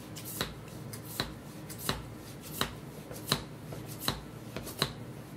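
Chef Caron hand wine vacuum pump, stainless steel and ABS plastic, worked up and down on a silicone stopper in an opened wine bottle to draw the air out. Each stroke gives a short sharp click, about every three-quarters of a second, seven strokes in all.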